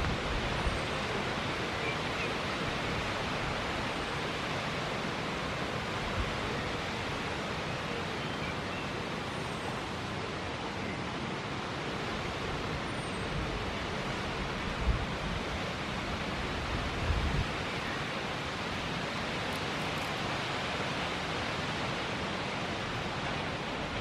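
Steady hiss of wind outdoors, with a few faint high chirps and a couple of soft low thumps about two-thirds of the way through.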